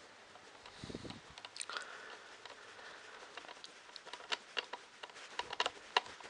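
Irregular small clicks and taps of hands handling screws, wires and small parts during assembly work, with a soft rustle and a dull knock about a second in, and the clicks coming thicker in the second half.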